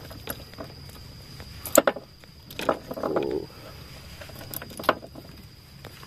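Close handling noise: scattered clicks and knocks, the sharpest about two, two and a half and five seconds in, over a faint steady high tone.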